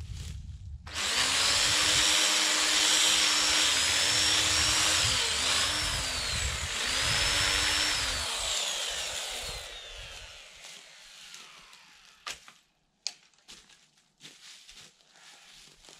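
Two-stroke chainsaw at full throttle cutting into wood from about a second in, its pitch sagging several times as the chain bites under load, then falling away as the throttle is released around ten seconds in. A few sharp knocks follow near the end.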